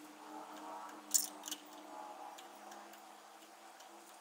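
A wrench turns a grooved steel bolt, used as a homemade thread chaser, into tight threads in a hole saw arbor. The bolt scrapes faintly as it slowly chases the threads. The wrench clicks sharply against the bolt head a few times, loudest about a second in.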